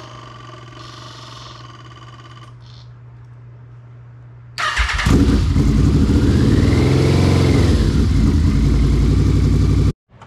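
A Yamaha VMAX's 1198 cc V4 engine is cranked on the starter about four and a half seconds in. It catches at once and runs loud, with one throttle blip that rises and falls, then cuts off suddenly near the end. Before it, a steady buzz stops about two and a half seconds in.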